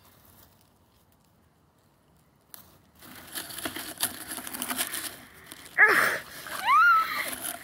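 Dry rustling and crackling close to the microphone starting about three seconds in, the sound of dry grass being disturbed, then two short high cries near the end: the first falls steeply in pitch, the second rises and then levels off.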